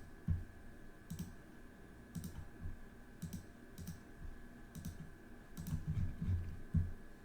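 Irregular clicks of a computer mouse and keyboard, about one or two a second, with a short cluster around six seconds in, over a faint steady hum, as a spreadsheet list is cut, pasted and sorted.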